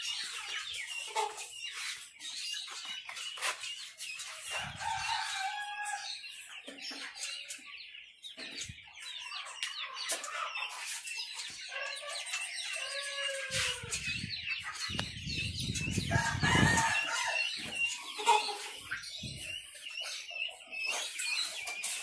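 A flock of chickens: chicks peeping constantly, hens clucking, and a rooster crowing about twelve seconds in. A low rumble runs for a few seconds just after the crow.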